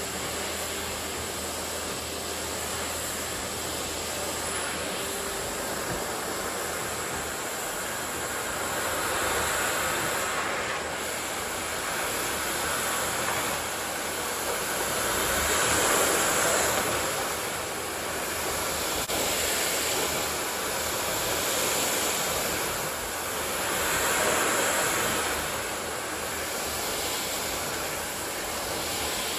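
Miele vacuum cleaner running steadily, with a whooshing noise. About a third of the way in, the sound starts swelling and easing every few seconds.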